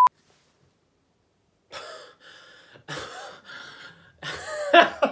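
A one-kilohertz censor bleep cuts off at the very start, then a second and a half of dead silence. A woman's breathy vocal sounds follow: gasps and exhalations, with a louder outburst near the end.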